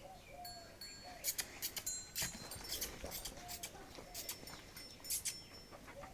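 Livestock pen background: scattered short clicks and jingles with faint animal calls.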